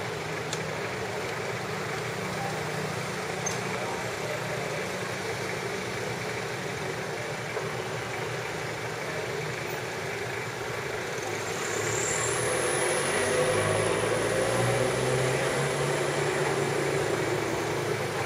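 Steady street noise with an engine running, a little louder from about twelve seconds in.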